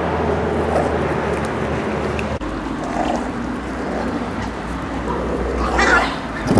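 Steady outdoor background noise, with a brief growl near the end from a Miniature Pinscher puppy over its raw meat.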